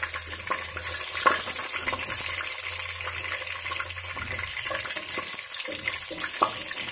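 Green chillies, curry leaves and whole spices frying in hot oil in a pot: a steady sizzle with crackles, and a spatula stirring and knocking against the pan, one sharp click about a second in.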